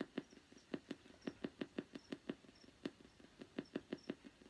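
Spirit box radio sweeping through stations: an even train of short clicks of radio noise, about five a second.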